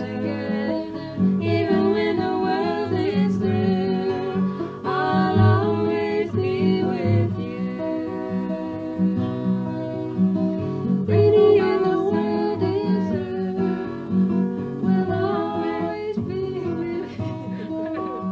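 An original song: a woman singing to acoustic guitar.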